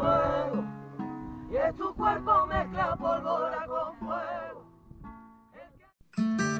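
A singer holding long, wavering, ornamented notes over Spanish acoustic guitar. The music fades out about five seconds in, and guitar music starts again abruptly just before the end.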